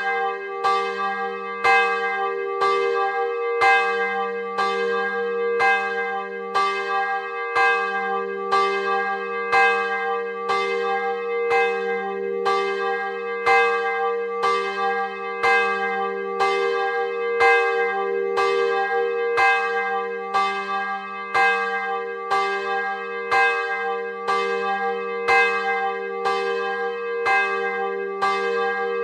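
The largest of the three Rudolf Perner (Passau) church bells, cast in 2009: 102 cm across, 615 kg, tuned to g'. It swings and rings on its own, the clapper striking about once a second, each stroke's deep hum still sounding when the next one lands.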